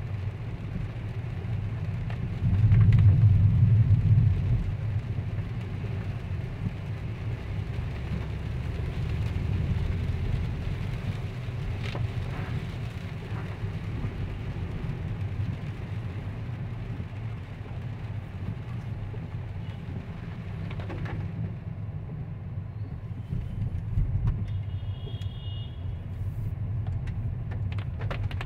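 Car cabin noise while driving on a rain-soaked road: a steady low rumble of engine and tyres on wet tarmac, louder for a couple of seconds about three seconds in. A brief high beep sounds near the end.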